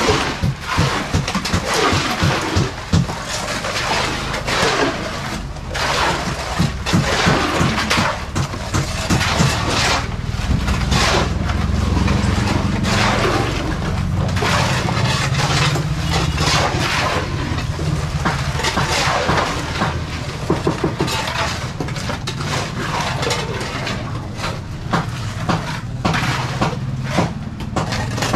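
Shovels scraping and knocking through sand, gravel and cement as concrete is mixed by hand, with an engine running steadily underneath.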